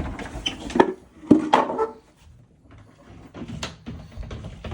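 A closet door being moved on its pivot rods and track after refitting: sliding scrapes with two sharp wooden knocks about a second in, then lighter clicks and rattles near the end.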